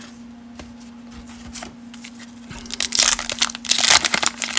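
Waxed-paper wrapper of a 1989 Fleer baseball wax pack being torn open and crinkled, a dense crackling that starts about three seconds in after a few faint ticks of cards being handled.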